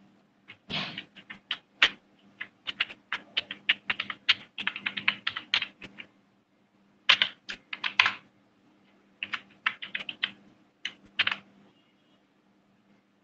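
Typing on a computer keyboard: several runs of quick key clicks with short pauses between them, stopping near the end. A faint steady low hum sits underneath.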